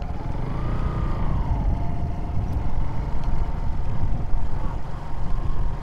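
Motorcycle engine running while riding, its note dropping slightly about a second and a half in, under heavy wind and road rumble on the microphone.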